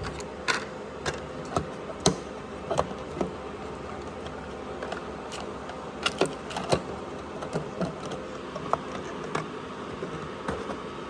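Scattered clicks and light knocks of small hard parts and equipment being handled, over a steady hum.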